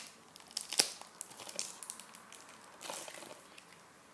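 Plastic shrink-wrap on a Blu-ray case crinkling and tearing as it is pulled open, in irregular crackles. There is a sharp snap just under a second in and a burst of crinkling around three seconds.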